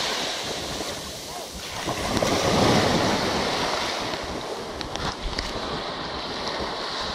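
Small surf washing onto a sandy beach, one wave surging louder about two seconds in, with wind buffeting the microphone.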